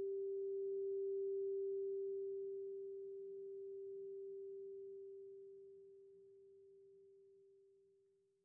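A struck meditation bell ringing out after a prayer: one pure, steady tone that fades slowly and dies away about seven seconds in.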